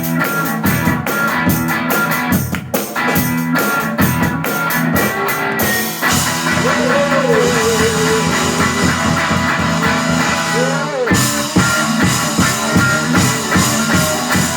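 Live rock music on electric guitar and drums, with a steady strummed beat for about six seconds, then held chords ringing with gliding notes over them.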